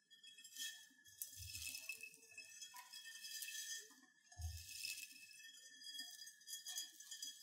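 Faint rustling and light clicking of a mass of small rubber hair bands being scooped and stirred by hand in a glass bowl, with two low thumps, about a second and a half in and again about four and a half seconds in.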